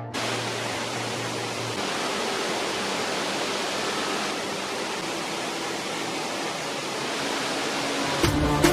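Polska Skakavitsa waterfall rushing, a steady, even sound of falling water with no breaks. Music cuts back in just before the end.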